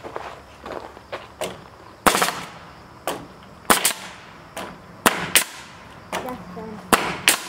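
Pneumatic nail gun firing nails into wooden boards: about seven sharp shots at uneven intervals, starting about two seconds in, some in quick pairs less than half a second apart.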